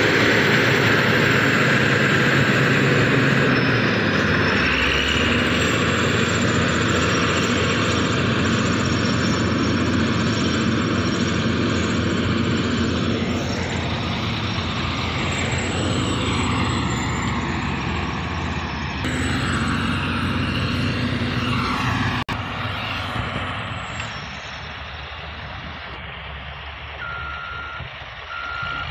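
Motor grader's diesel engine running loud with its pitch rising and falling, dropping to a quieter engine sound after about 22 seconds. Near the end a reversing alarm starts beeping at an even pace.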